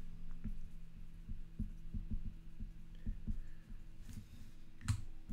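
Pen writing by hand on a trading-card redemption card on a tabletop: a run of soft, irregular taps and light scratches, with a sharper click near the end, over a faint steady hum.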